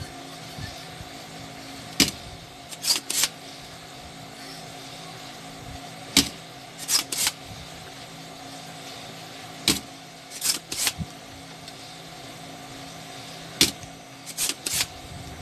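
Spring-loaded desoldering pump (solder sucker) firing with a sharp snap, followed by two short rasping sounds as it is re-cocked. This happens four times, about every four seconds, as solder is sucked off the pads to remove a part from an inverter board, over a steady background hum.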